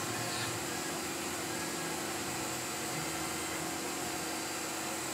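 Tormach PCNC 1100 CNC milling machine running a job, a steady hum under an even hiss.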